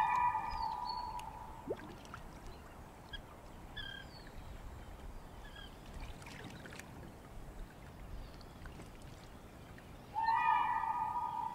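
Outdoor nature sound: a long, steady-pitched animal call lasting about a second and a half opens and comes again near the end, with scattered short bird chirps and a faint hiss between.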